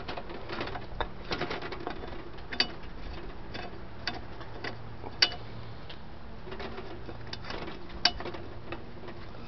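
Screwdriver working the lockless lock out of an Oak Acorn gumball machine's metal top: small scattered metal clicks and scrapes, with a few sharper ticks.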